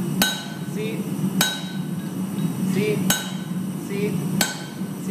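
Four slow hammer blows on a red-hot steel bar held on a cutting hardie in an anvil's hardy hole, cutting a bamboo node into the bar. Each blow rings the anvil, over a steady low hum.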